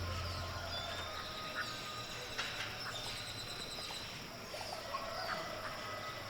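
Outdoor natural ambience of many small animal calls, frogs and birds, chirping and whistling with short sweeping notes over a few steady high tones. The last of the soundtrack's low music note fades out in the first second.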